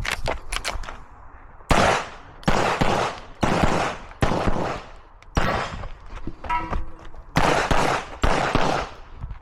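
A string of pistol shots from a CZ Shadow 2 in an IPSC Production stage, fired roughly one a second, each crack followed by a long echo. A few sharper, quicker cracks come in the first second.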